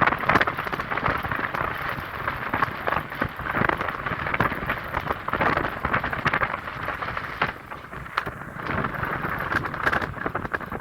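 Rain spattering and wind rushing over the microphone of a rider on a moving motorcycle: a dense, uneven hiss full of small ticks, dipping briefly about eight seconds in.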